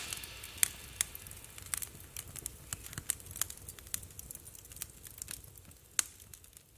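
Wood fire crackling in an open fireplace grate: irregular snaps and pops, with a sharper pop about six seconds in.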